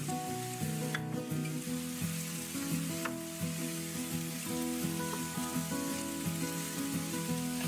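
Food sizzling as it fries in a pan, with a utensil clicking against it about one and three seconds in. Soft background music plays throughout.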